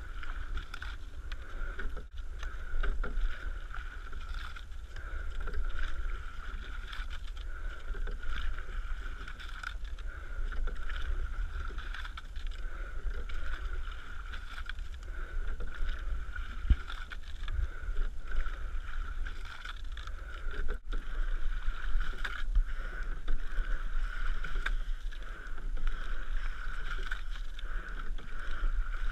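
Double scull rowing boat running through lake water, with wind rumbling on the boat-mounted microphone. The sound swells about every three seconds in time with the rowing strokes, and cuts out briefly twice.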